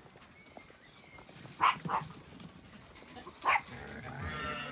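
A dog barking: two short barks close together, then one more about a second and a half later. Near the end a sheep gives a longer, wavering bleat.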